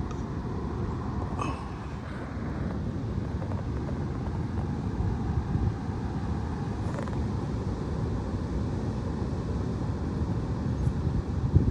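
Strong wind rumbling steadily on the microphone, with a couple of faint clicks.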